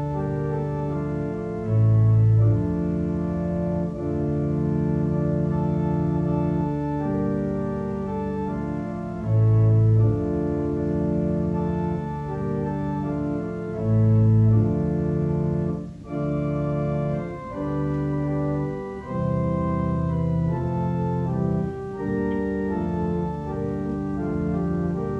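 Church organ playing slow sustained chords over a moving bass line, with loud, deep bass notes sounding three times.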